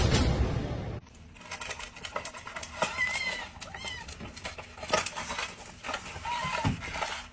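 A loud noisy sound cuts off about a second in. After it, a kitten gives several short, high, squeaky mews while it and a dog eat kibble from a shared plastic dish, with scattered clicks of kibble against the dish.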